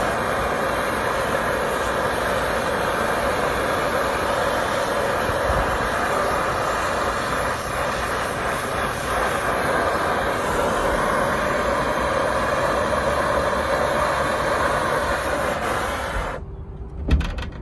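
Brazing torch flame hissing steadily as a copper refrigerant line is brazed onto a compressor stub. The flame cuts off suddenly about a second before the end, followed by a couple of sharp knocks.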